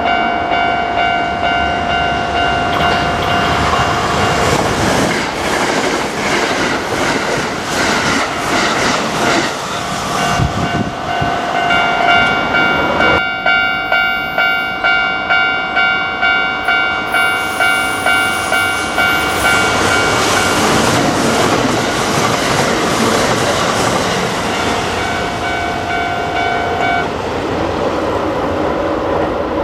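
Level-crossing warning bell ringing steadily while a Kintetsu train passes over the crossing, its wheels clattering over the rail joints. The train noise fades after about twenty seconds and the bell stops near the end.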